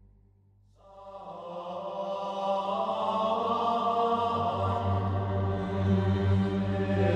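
Background music: voices singing a slow chant over a low drone. It fades in about a second in and grows steadily louder.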